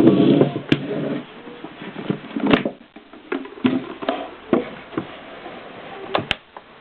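Keys of a 1920s Erika typewriter striking one at a time at an uneven pace, sharp single clacks about one to two a second. A louder, denser clatter fills the first second.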